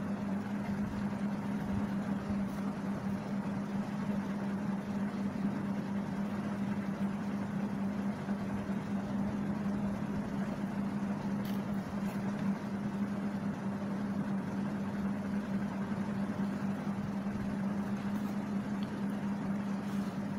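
Steady background hum: one constant low tone over an even hiss, with two faint clicks about halfway through.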